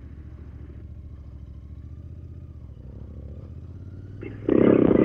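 Royal Enfield Interceptor 650's parallel-twin engine running steadily at low road speed, heard from the rider's helmet. A short, much louder burst of sound cuts in near the end.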